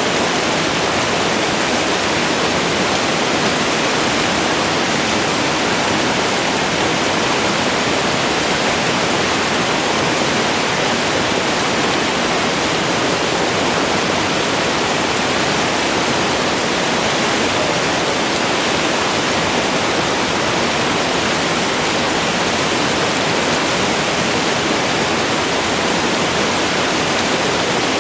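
Waterfall: water falling and rushing in a steady, unbroken hiss with no distinct splashes.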